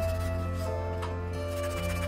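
Soft instrumental background music: held notes over a steady low bass tone, changing notes about two-thirds of a second in.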